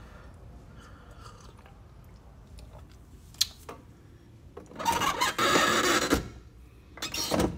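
A person slurping a hot ginger drink from a mug: a long noisy slurp about five seconds in and a shorter one near the end, with a faint click a little before.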